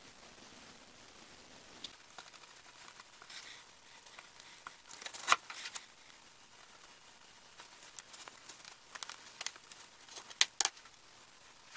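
Scattered light clicks and knocks of pallet-wood strips and a plastic glue bottle being handled on a workbench, with the sharpest knocks about five seconds in and a quick cluster near the end.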